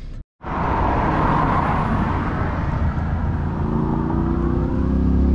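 Road traffic noise: a steady rush of passing vehicles that cuts in after a split-second gap, with a low engine hum building in the second half.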